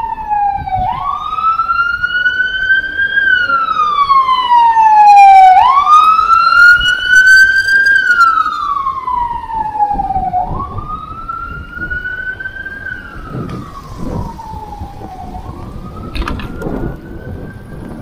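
Emergency vehicle siren wailing, its pitch slowly rising and falling in cycles of about five seconds. It grows louder up to the middle and then fades away, over the low rumble of traffic and wind.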